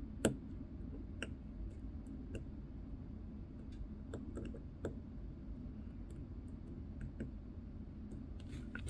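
Small, scattered clicks and taps of watch-repair tools on a watch movement, one sharper click just after the start and a handful of fainter ones after it.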